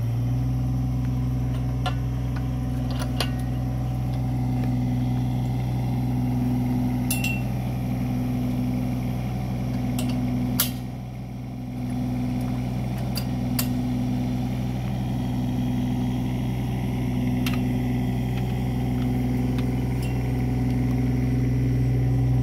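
Kubota mini excavator's diesel engine running steadily, its hum swelling and fading about once a second, as the hydraulic drive head handles a steel screw pile. A handful of sharp metallic clinks come from the pile and attachment.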